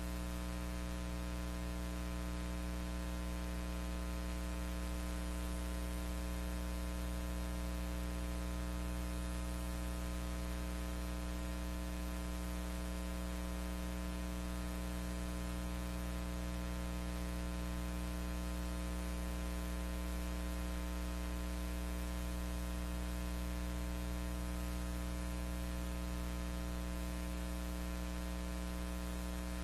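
Steady electrical hum with a stack of even overtones under a constant hiss: the noise floor of a silent film transfer, with no sound from the scene itself.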